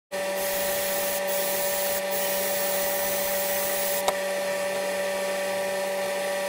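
A steady machine whir with a constant hum, starting abruptly and running without change, with one short click about four seconds in.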